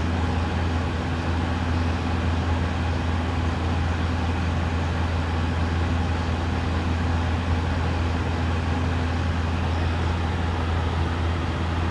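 A steady low hum over an even rushing noise, with no change in level.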